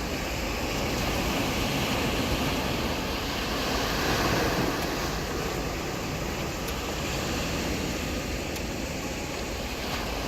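Ocean surf on a beach: a steady wash of breaking waves with a low rumble, swelling a little about four seconds in.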